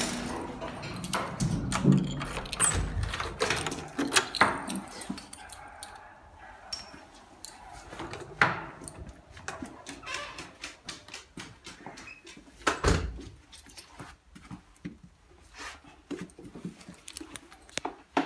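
Scattered clicks, knocks and rustles as a large dog on a leash comes in and moves across a hard floor, with heavier thuds about 3 and 13 seconds in.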